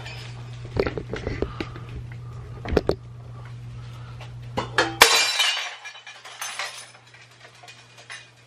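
Knocks and clinks of things being handled, then about five seconds in a glass object shatters loudly, its pieces tinkling for a second or two.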